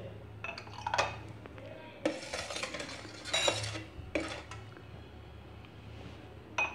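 Steel ladle scraping and clinking against a steel bowl as thick, pulpy raw mango panna is stirred and ladled into a glass. There is a longer swishing stir in the middle and a few sharp clinks near the end.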